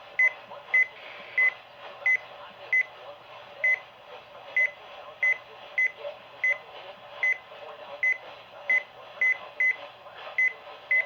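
Short high electronic beeps, about eighteen of them, coming unevenly one to two a second over a faint low hum.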